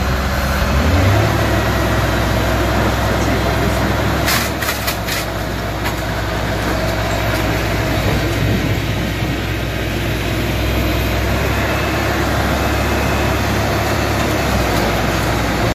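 Diesel engine of a wheeled scrap-handling excavator with a grab, running steadily under hydraulic load; its note steps up about a second in as the engine is revved. A few sharp metal clanks come around four to five seconds in.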